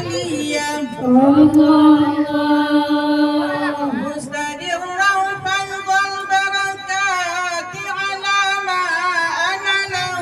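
A woman singing through a microphone in a rebana group, in long held notes that waver and slide between pitches, chant-like. Light rebana frame-drum strokes join in the second half.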